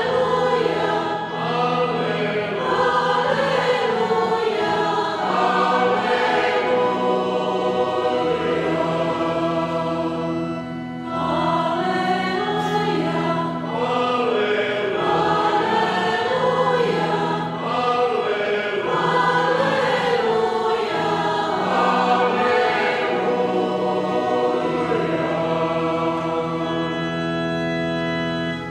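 Parish church choir singing a Croatian Easter hymn over steady held low accompaniment notes, with a short break between phrases about eleven seconds in.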